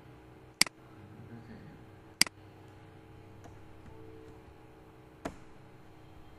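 Three sharp clicks of a computer mouse button, the third quieter than the first two.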